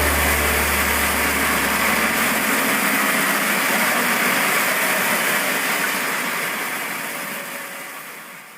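Homemade sawmill's engine running steadily as a rushing noise with no clear pitch, fading out over the last couple of seconds.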